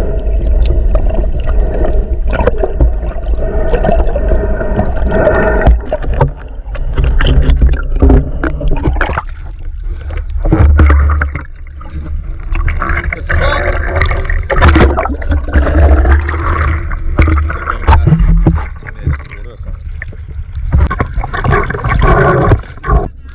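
Water sloshing and rumbling over a GoPro held at and just under the sea surface, with splashes and muffled voices partway through.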